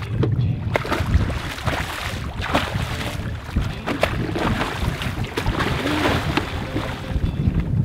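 A hooked tarpon thrashing at the surface beside the boat: repeated, irregular splashing of water, with wind buffeting the microphone.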